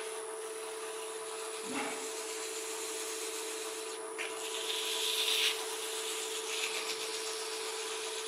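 Light rubbing against a small piece of wood turning on a wood lathe, over a steady motor hum. There is a faint knock about two seconds in, and the rubbing grows louder and hissier about four to five seconds in.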